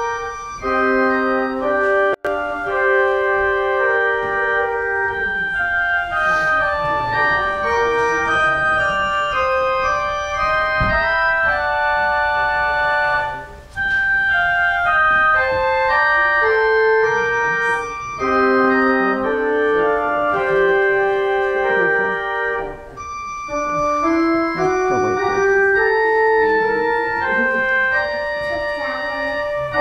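Church organ playing slow, sustained chords, the notes held and changing step by step, with a brief pause about thirteen seconds in.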